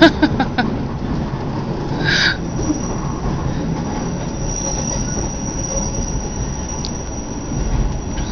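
Passenger train running along a curve, heard from inside the carriage: a steady low rumble, with the wheels squealing in a thin, steady high tone from about two and a half seconds in. A sharp knock and a few clicks sound right at the start, and a short rushing burst about two seconds in.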